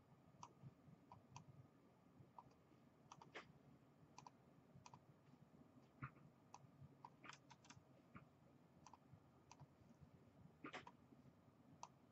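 Near silence broken by faint, irregular clicking from a computer mouse and keyboard.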